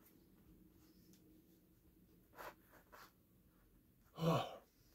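A man's breath and mouth sounds while eating: two faint short breaths around the middle, then a louder sigh-like exhale near the end.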